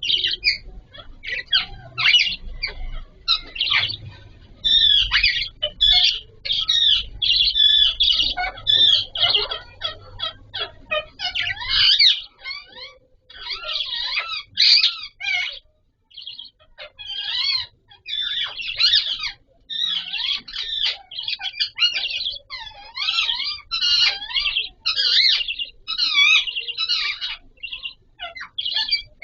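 Budgerigars chirping and chattering in quick, warbling calls almost without pause, with a short lull about halfway through.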